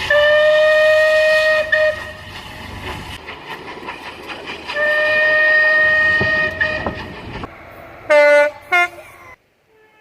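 A train sounds its warning signal: a steady single-note blast of nearly two seconds, then, over the rumble of the running train, a second blast just as long. Near the end comes a lower, shorter blast and a brief toot, then the sound cuts off.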